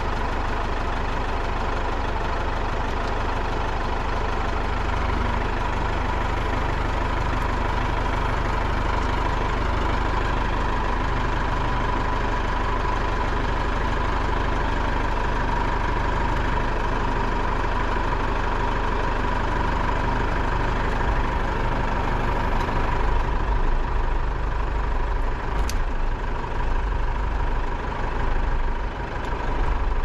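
Mahindra compact tractor's diesel engine running steadily, its low rumble turning uneven in the last third.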